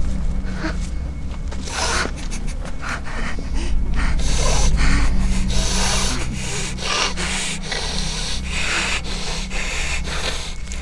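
A man breathing heavily and raggedly, quick harsh breaths two or three a second, over a steady low drone.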